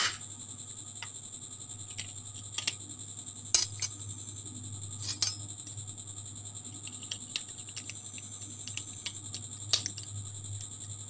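Metal spoon clicking and scraping against the inside of a small glass jar while scooping out ghee: scattered sharp clicks and short scrapes, the loudest about three and a half seconds in, over a steady high whine and low hum.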